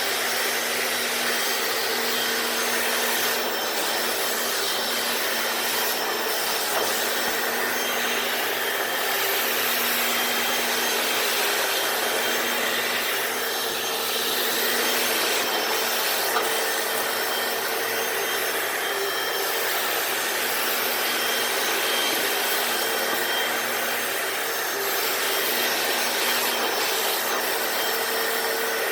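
Hoover FloorMate hard-floor cleaner running steadily: its suction motor drones while the spinning brushes scrub wet concrete, with a faint hum that comes and goes.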